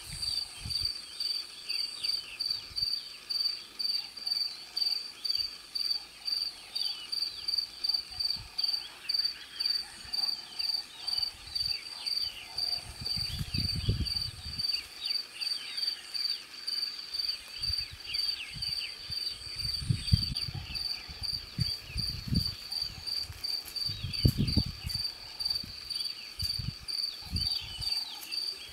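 A cricket chirping steadily in a high, even pulse, about three chirps a second, over many fainter short falling chirps. A few brief low rumbles come in around the middle and later on.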